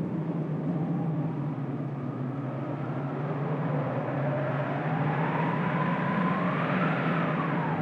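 Designed wind sound effect: a steady rushing wind with a low rumble under it and a whistling howl that rises slowly through the second half and starts to fall near the end.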